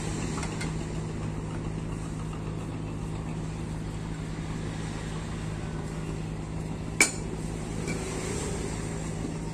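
A steady low hum of an engine or motor running, with one sharp metallic clink about seven seconds in as a socket wrench works on the bolts of a clutch pressure plate.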